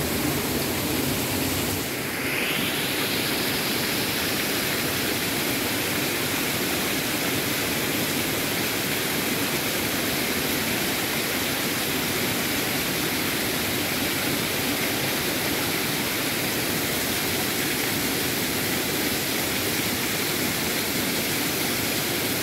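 Shallow rocky stream flowing over stones: a steady sound of running water.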